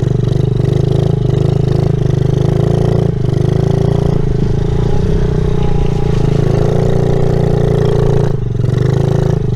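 Small dirt bike engine running as the bike is ridden, its pitch dipping and then rising a few times with the throttle.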